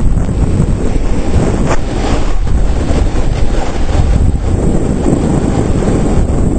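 Loud, steady wind buffeting on a camera microphone, rushing air from riding down a snow slope on a snowboard.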